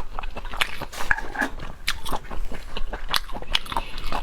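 Close-miked mukbang eating: biting and chewing seafood, with a rapid, irregular run of sharp wet clicks and smacks.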